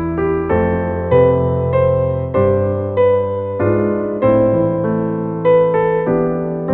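Background piano music: a slow, gentle piano melody with chords, each note struck and decaying.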